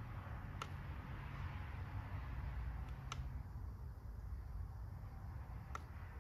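Three sharp single clicks, about two and a half seconds apart, from the push button on a JFEGWO 6000A jump starter as its LED work lights are switched and cycled, over a low steady hum.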